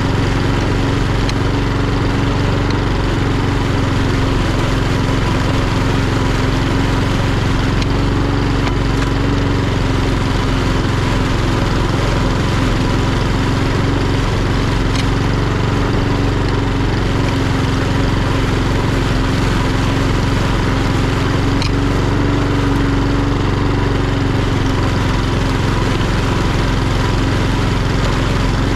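Etesia Pro46 walk-behind lawnmower with a Honda GCVx170 single-cylinder engine running steadily under load while mowing grass, its engine note and blade noise holding level.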